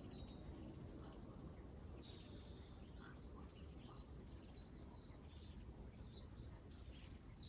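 Quiet garden ambience with faint, scattered small-bird chirps, and a steady high hiss lasting about a second about two seconds in.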